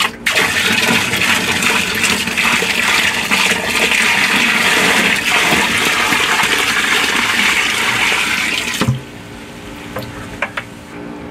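Water poured from a plastic bucket into a sump pit, a steady splashing rush of water into water that stops abruptly about two seconds before the end. The pit is being filled to raise the water to the electronic switch's pump-on probe.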